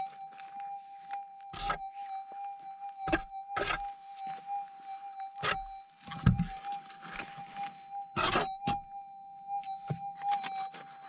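Minelab gold detector's steady threshold hum, holding one pitch throughout, with scrapes and sharp knocks scattered through it as stony ground is worked by hand at the coil.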